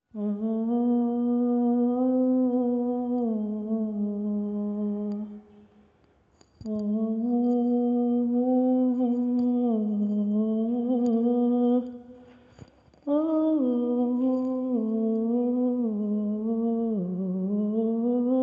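A man humming a slow, sad melody with no accompaniment, in three long wordless phrases with short breaks between them.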